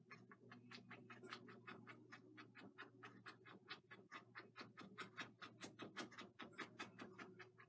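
Paintbrush dabbing and stroking on a canvas of wet oil paint, painting evergreen trees: faint quick strokes, about five a second. A faint steady hum runs underneath.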